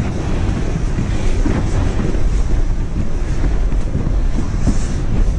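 Wind buffeting the microphone, a loud steady rumble, over faint crunching steps of someone walking across snow-covered lake ice.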